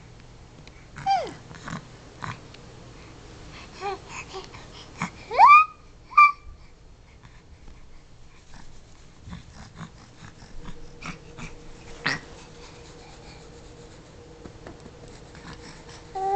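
Baby babbling in short, high squeals and coos that glide up and down in pitch, a few at a time with pauses between; the loudest, a rising squeal, comes about five and a half seconds in. Light taps and rustles fill the gaps.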